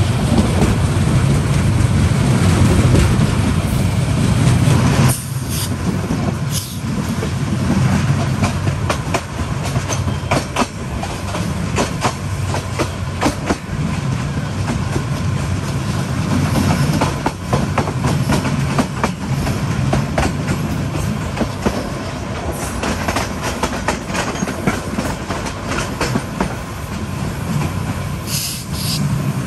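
PT INKA-built passenger coaches running at speed, heard from beside the train: a steady low rumble of wheels on rail with a scatter of clickety-clack clicks over the rail joints. The rumble eases a little about five seconds in.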